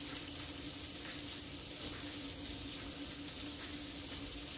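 Food sizzling steadily in a pan, with a steady low hum underneath.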